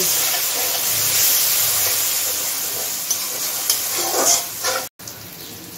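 Onions and spice paste sizzling in hot oil in an aluminium kadai while being stirred with a wooden spatula: the masala being fried down (bhuna). A few knocks of the spatula on the pan come late on, then the sound cuts off abruptly and returns fainter.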